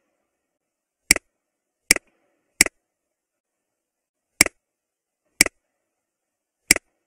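Computer mouse button clicking six times at uneven intervals, each a quick press-and-release click.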